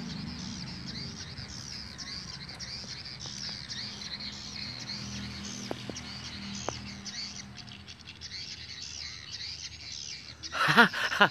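Swiftlets twittering in a dense, unbroken stream of high chirps, the swiftlet house's lure call sound mixing with the birds circling its entrance hole. A short loud burst near the end.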